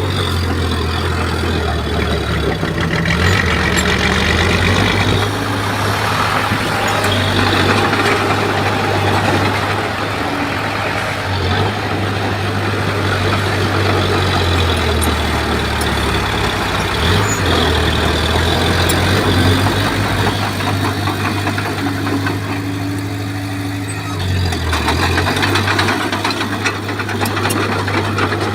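Bulldozer's diesel engine running under varying load, its low note shifting up and down as the machine works.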